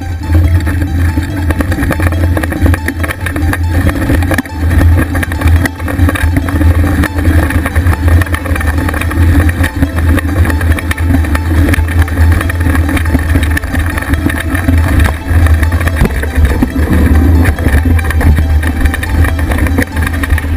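Mountain bike riding fast over rough grass, picked up by a camera mounted on the front fork: a loud, steady low rumble of wind buffeting and tyre and frame vibration.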